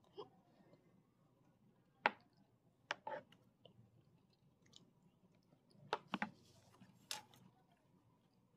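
Quiet eating sounds: a spoon and food on a plastic meal tray, giving about half a dozen sharp clicks and taps, with soft chewing between them.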